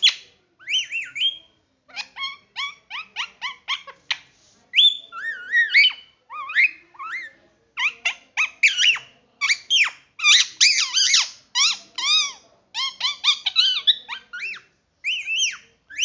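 Young rose-ringed parakeet chattering: a quick run of short high chirps, squeaks and sliding whistles, broken by brief pauses.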